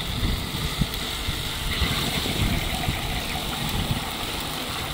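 Electric soybean milk grinder running steadily, its motor grinding soybeans under load.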